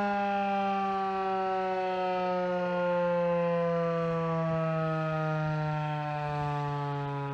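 Federal Signal 2001 outdoor warning siren winding down, its pitch falling slowly and steadily while the volume swells and fades a little as the rotating horn sweeps.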